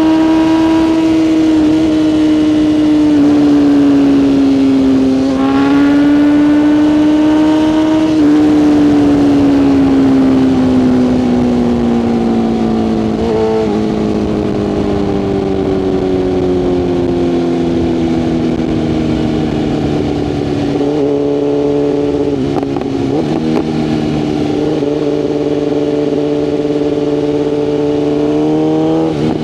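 BMW S1000RR's inline-four engine running under way. Engine speed dips and climbs again about five seconds in, then falls slowly for about twelve seconds and settles at a steady lower pitch.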